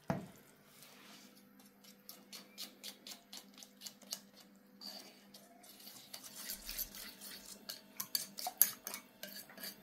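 A spoon stirring, scraping and clicking against the side of a cooking vessel in a run of light strokes, quicker and louder over the last few seconds.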